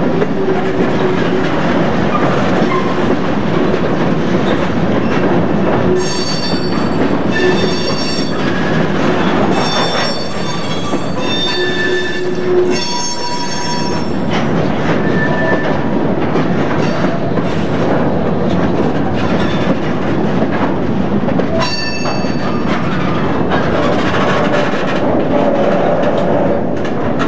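Freight train of empty covered cement hoppers rolling past, wheels clicking over the rail joints. High-pitched wheel squeal comes in stretches about a quarter to halfway through, and again briefly later on.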